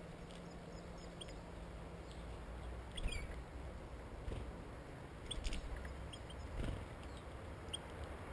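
Short, high chirps of European goldfinches, scattered singly and in small clusters, over a steady low background rumble, with a few dull knocks through the middle.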